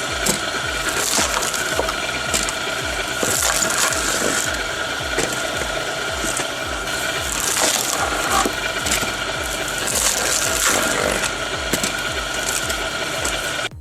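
A wood-splitting machine working through logs: steady machine noise with several louder surges of wood cracking and splitting, over background music with a steady beat.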